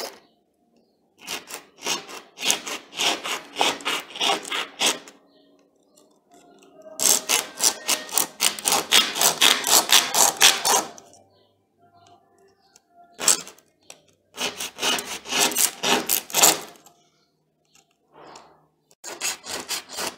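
Carbon brushes rubbed back and forth by hand on a sheet of sandpaper, in several bursts of quick scraping strokes with short pauses between. The oversized replacement brushes are being ground down to fit an angle grinder's brush holders.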